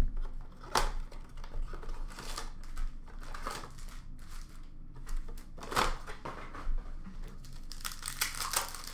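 Cardboard blaster box of Upper Deck hockey cards being torn open by hand, its card packs crinkling and rustling as they are pulled out. Irregular rips and rustles, with a sharp rip about a second in and louder ones near six seconds and near the end.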